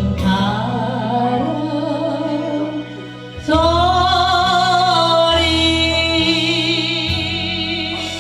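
A singer performing a slow Korean ballad with instrumental accompaniment. About three and a half seconds in, the singer holds one long note with vibrato.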